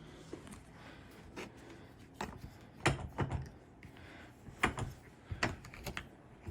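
Scattered clicks and clacks, about six separate strokes, some with a low knock, from the latches of a plastic transport roller case being flipped up and handled.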